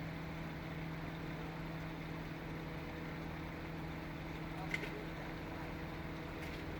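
An engine running steadily at an even pitch, with one sharp click about two-thirds of the way in.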